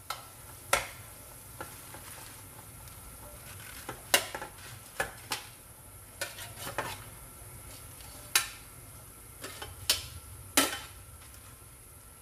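A pot of pork soup boiling hard with a steady bubbling, broken by a scattering of sharp clinks and knocks of a metal spoon and ladle against the stainless-steel pot and plate as bok choy is pushed in.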